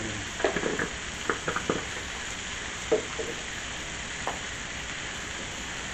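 Shrimp, pork medallions and cauliflower sizzling steadily on a hot Blackstone flat-top griddle, with garlic butter freshly poured over the shrimp. Several sharp crackles in the first couple of seconds, and a couple more later.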